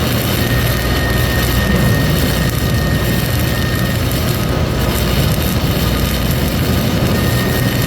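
Self-shielded flux-cored arc welding with Lincoln NR-233 5/64-inch wire: a loud, steady crackling hiss of the arc burning, over a low steady hum.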